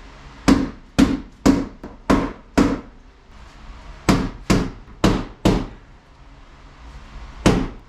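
Hammer blows on the metal of a Chevy S10's engine bay, beating it back for clearance because the LS engine's oil pan was hitting the bottom corners. There are five blows about two a second, a short pause, four more, then a single blow near the end.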